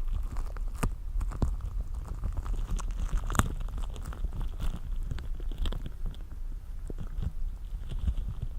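Latex-gloved hands rubbing lotion together, making sticky sounds: a steady run of irregular small clicks and crackles.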